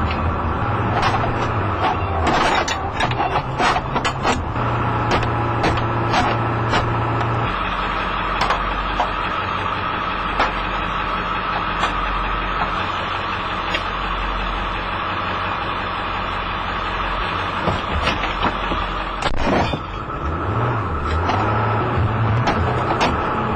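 Car interior noise: a steady running drone with a steady high-pitched tone over it. Scattered sharp clicks and knocks come through it, bunched about two to four seconds in, with a loud knock about nineteen seconds in.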